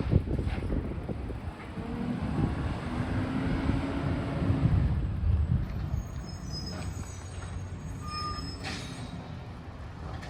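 Garbage truck running, its engine note swelling for a few seconds, then settling lower, with a few brief high squeaks near the end.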